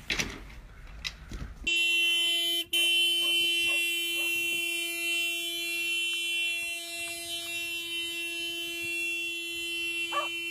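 Car horn sounding in one long, unbroken steady blast, starting about two seconds in and held on, pressed by a dog leaning on the steering wheel from the driver's seat.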